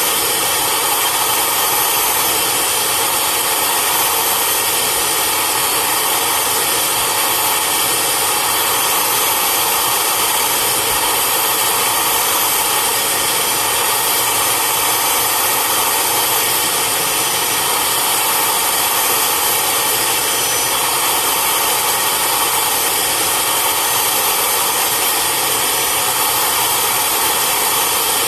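Upholstery extractor's vacuum motor running steadily, a loud even hiss of suction with no break, as fabric seats are extracted.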